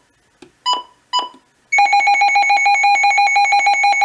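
Midland WR100 weather radio beeping twice as its menu buttons are pressed, then sounding its alert test tone: a loud, rapidly pulsing alarm that runs for nearly three seconds.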